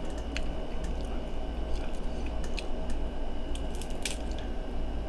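Crab leg shells cracking and snapping several times as they are broken apart by hand, with wet squishing of sauce-coated crab meat and chewing, over a steady low background hum.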